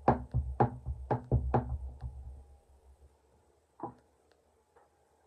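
Clear acrylic stamp block tapped again and again onto an ink pad to ink a rubber leaf stamp: a quick run of about eight dull knocks in the first two seconds, then one more knock a little before four seconds.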